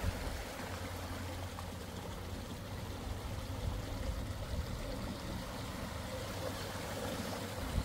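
Steady rush of flowing water at the River Derwent's tidal barrage, over a constant low rumble.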